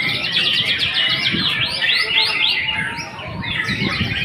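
White-rumped shama (murai batu) singing a fast, dense run of high chips and short whistled slurs, with a brief lull about three seconds in.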